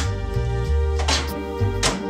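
Film score music: a low bass line that changes note every half second or so under sustained higher notes, marked by three brief accents.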